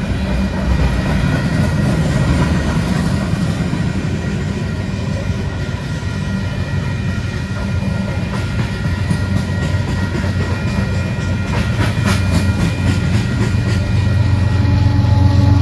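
Loaded coal hopper cars rolling past on the rails: a steady heavy rumble of wheels on track with rail clacks and a few steady high tones over it. In the last few seconds a diesel locomotive's low engine hum grows louder as it draws near.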